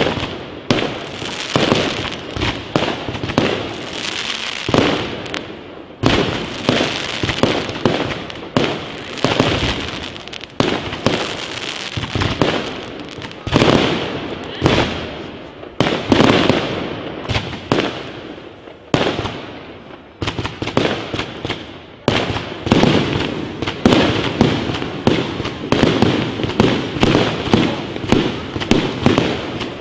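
Fireworks display: aerial shells launching and bursting overhead in a rapid, continuous series of bangs. The bangs come thicker and closer together in roughly the last third.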